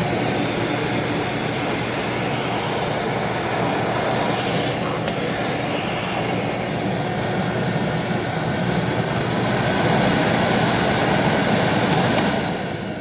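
Aspiron bagless canister vacuum cleaner running, a steady rush of suction with a high motor whine. The whine rises in pitch about nine seconds in and drops back near the end.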